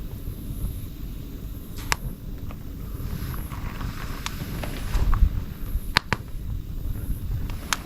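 Homemade Swedish torch log fire burning, with a few sharp crackling pops over a steady low rumble.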